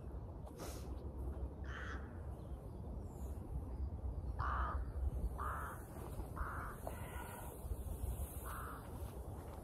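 Crows cawing: about six short calls, mostly around a second apart, over a low rumble.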